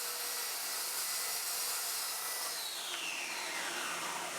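Track saw running on plywood, a steady whirring hiss, with the blade's pitch falling as it winds down in the second half.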